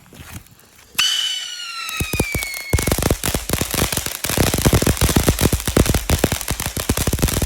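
Firework fountain going off: a falling whistle starts suddenly about a second in, then gives way to dense, rapid crackling and popping that continues.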